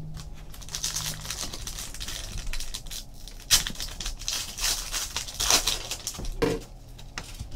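Trading-card pack wrapper crinkling and tearing as a pack is opened, with cards rustling and sliding against each other. Irregular crackles, loudest about three and a half and five and a half seconds in.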